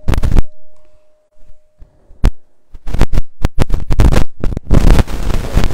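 A struck bowl bell rings on with one steady tone that stops about two and a half seconds in, with a loud knock right at the start. From about three seconds in, a rapid run of close clicks and bumps: a clip-on microphone being handled.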